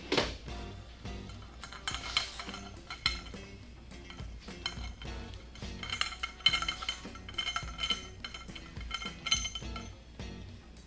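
Steel hand tools clinking and knocking against metal as a part is worked loose, with a run of ringing metallic clinks from about six to nine and a half seconds in.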